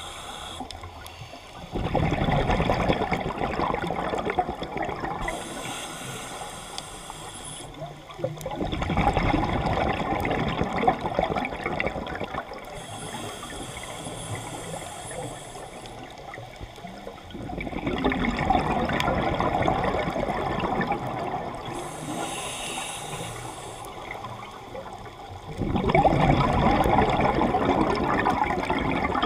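Scuba diver breathing through a regulator underwater: four long exhalations of bubbles, each lasting a few seconds, alternate with shorter hissing inhalations, about one breath every eight seconds.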